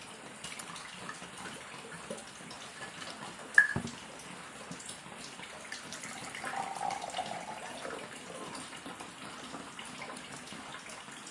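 Water poured from a bottle into a drinking glass in a thin, steady trickle. A single sharp knock about four seconds in.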